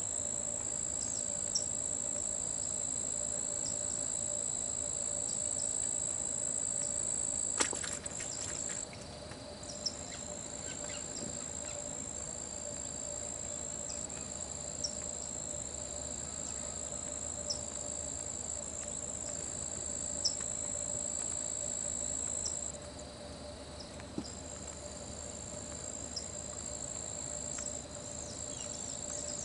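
Insects trilling: a steady, high-pitched continuous buzz that breaks off briefly twice, about eight seconds in and again about two-thirds of the way through, with short chirps repeating every second or two. A single click sounds about eight seconds in.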